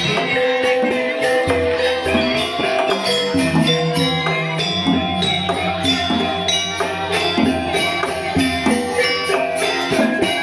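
Balinese gamelan music: metallophones playing a dense stream of struck notes over long, low, held gong tones, with a constant jingling shimmer of small cymbals.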